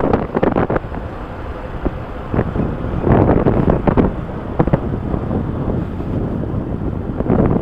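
Wind buffeting the microphone of a moving motorcycle, in irregular gusts, with the motorcycle's engine running underneath.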